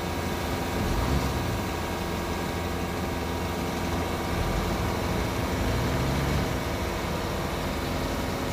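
Heavy diesel machine engine running steadily. Its low end swells briefly about a second in and again for a couple of seconds from about four seconds in.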